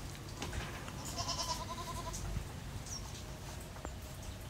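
A faint, quavering animal call, bleat-like, lasting about a second from about a second in, pulsing about eight times a second.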